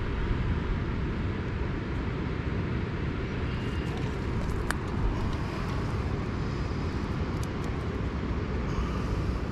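Steady low rumble of wind on the microphone outdoors, with a single faint click about four and a half seconds in.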